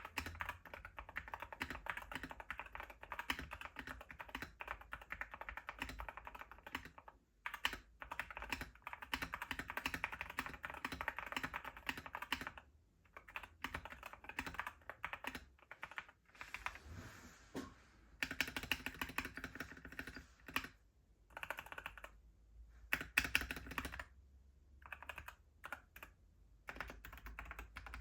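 Typing on a TKD Cycle 7 mechanical keyboard with Akko Rosewood linear switches, an FR4 plate and an aluminium case: fast runs of keystrokes broken by several short pauses.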